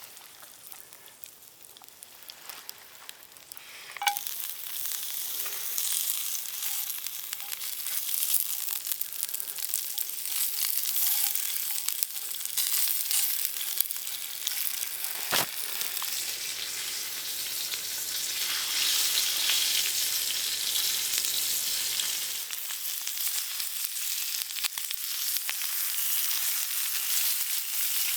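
Food frying on a hot cooking surface: a sharp knock about four seconds in, then a steady sizzle, with one more sharp click midway.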